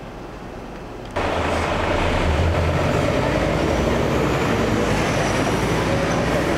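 A heavy vehicle engine running steadily with a deep low rumble. It comes in abruptly and loud about a second in, after a quieter stretch of background noise.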